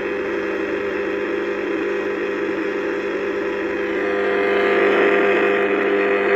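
Wideband powerline noise analyzer's speaker giving a loud steady buzz with hiss: the electrical noise it picks up from an unfiltered household mains outlet. It grows a little louder about four seconds in.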